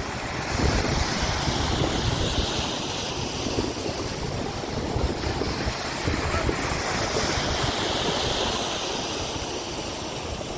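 Lake Michigan waves breaking and washing up the beach, swelling twice, with gusty wind buffeting the microphone.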